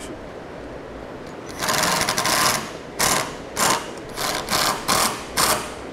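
Cordless impact driver running self-tapping screws in to secure a mounting bracket. One longer run of about a second starts about a second and a half in, then six short trigger bursts follow as the screws are snugged down.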